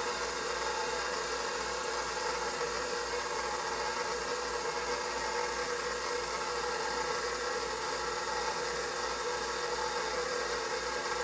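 Electric mixer running at a steady speed, beating milk and instant pudding mix in a bowl.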